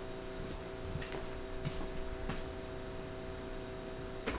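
Steady electrical mains hum, with a few faint ticks and a sharper click near the end.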